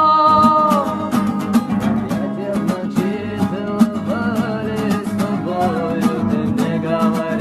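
Song with plucked acoustic guitar: a held sung note fades out about a second in, then the guitar carries on in an instrumental stretch.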